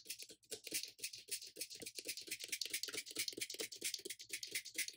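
Hand-pumped fine-mist spray bottle spritzing water onto paper in a rapid run of short, even spritzes, several a second.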